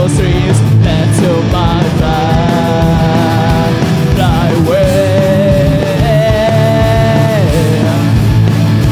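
A rock band playing live: distorted electric guitars and a drum kit under a male lead vocal, which holds two long sung notes in the second half.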